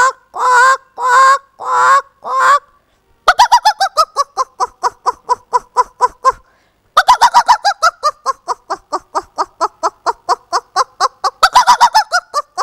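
A woman's vocal imitation of a chicken. It opens with about four drawn-out calls of half a second each, then turns into two long runs of quick, short clucks at about five or six a second, with a brief pause between the runs.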